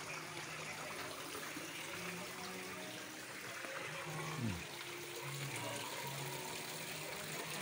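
Water trickling and splashing steadily from a small rock waterfall into a koi pond. A brief falling tone cuts through about halfway.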